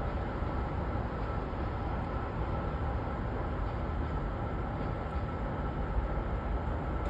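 XPT diesel passenger train moving out of the station: a steady low rumble, with a faint steady whine above it.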